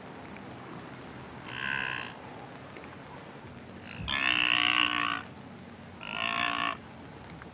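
Blue wildebeest calling: three short nasal grunting calls about two seconds apart, the middle one the longest and loudest at about a second.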